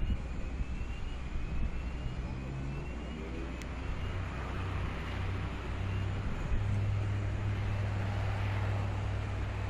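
Aircraft engines running on an airport taxiway: a steady low drone that grows louder about two-thirds of the way through.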